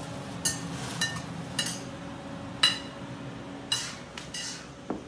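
A metal utensil clinking against dishes and pans: about eight sharp, ringing clinks at irregular intervals.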